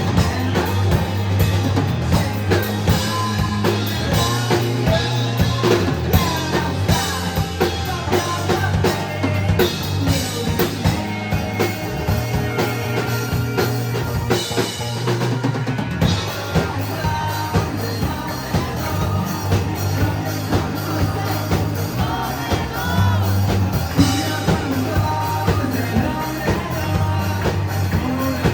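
Live rock band playing: drum kit keeping a steady beat under bass and electric guitar.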